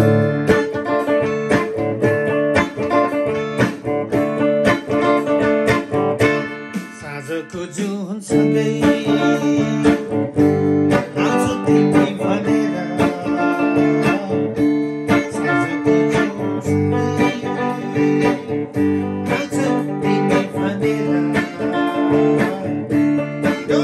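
Gretsch guitar being played, a quick run of plucked notes over held chords, easing off briefly about seven seconds in.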